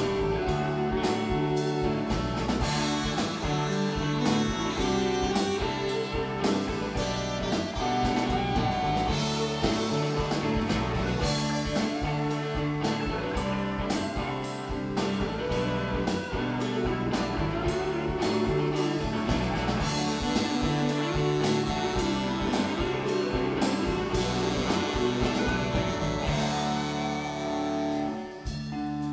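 Live rock band playing an instrumental break: electric guitars, bass, keyboard and drum kit over a steady beat, with a lead melody that slides in pitch. Near the end the drums and bass drop out, leaving held chords.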